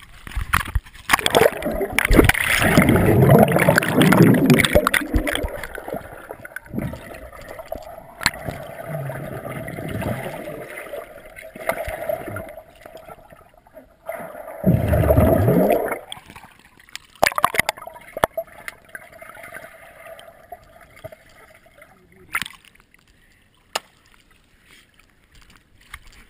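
Pool water heard through a GoPro's waterproof housing as it is thrown in and goes under: muffled rushing and bubbling that comes in surges, the biggest in the first few seconds and another around the middle, with sharp knocks against the case.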